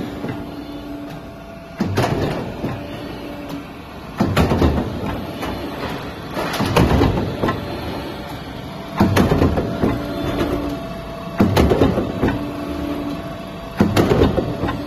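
Glazed-tile roof sheet roll forming machine running: a steady mechanical hum with a faint held tone, broken about every two and a half seconds, six times, by a loud burst of about a second as the step press cycles on the steel sheet.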